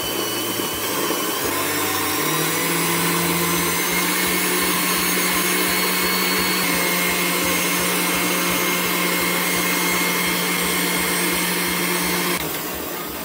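Countertop blender with a glass jar running, liquidising soursop pulp with water. Its motor hum rises in pitch about two seconds in, holds steady, and stops shortly before the end.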